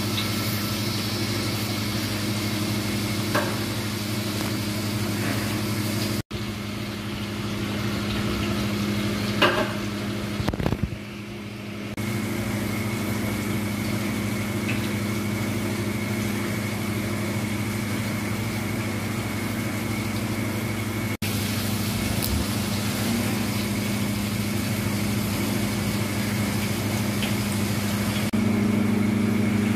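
A steady low mechanical hum, with a few short knocks, and brief drop-outs about six seconds in and again around twenty-one seconds.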